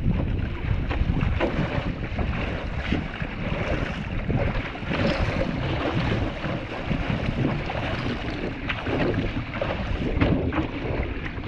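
Choppy sea water splashing and rushing against a one-man outrigger canoe's hull as it is paddled, in irregular gusts of splashes, with wind buffeting the microphone.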